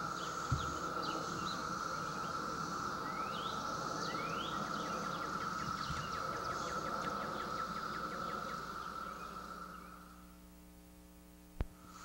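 Chorus of 17-year periodical cicadas: a steady drone that fades away over the last few seconds, followed by a single sharp click near the end.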